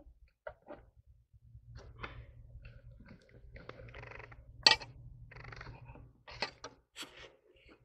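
Crinkling foil and scraping as foil-wrapped baked potatoes are lifted out of a stove's firebox and set on a metal tray, with scattered clicks and one sharp clink a little after the middle.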